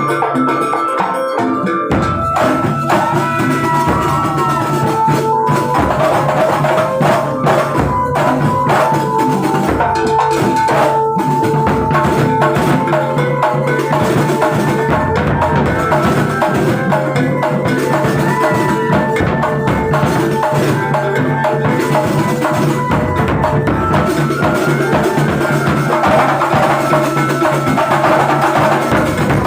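A Kuntulan ensemble playing: dense, continuous frame-drum and hand-drum percussion under steady held pitched notes.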